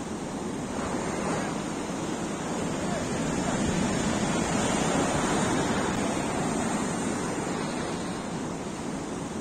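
Sea surf breaking and washing up a sandy beach, a steady rushing that swells louder a few seconds in and then eases off.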